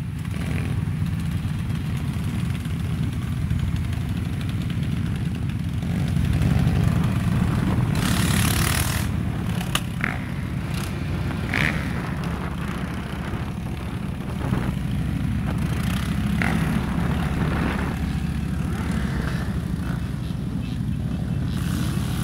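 Motorcycle engines running at low speed in a group ride: the cruiser carrying the microphone runs steadily with other motorcycles around it, getting louder for a few seconds about a third of the way in. A few short high-pitched chirps sound around the middle.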